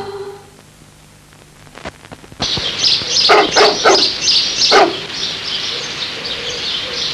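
The tail of a music jingle dies away, then about two and a half seconds in steady bird chirping begins. Over it a dog barks four times: three quick barks and a fourth about a second later.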